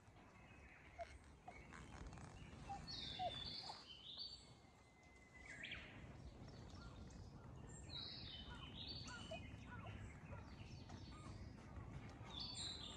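Faint birdsong: a short, high chirping phrase that comes back a few times, over a low steady background hiss.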